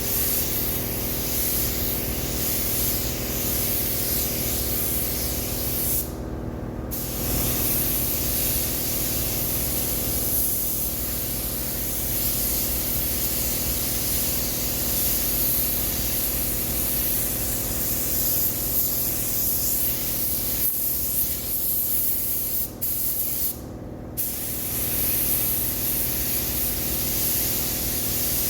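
Compressed-air paint spray gun spraying the colour coat in a steady hiss, the trigger let go briefly twice, about six seconds in and again a few seconds before the end. A steady hum runs underneath.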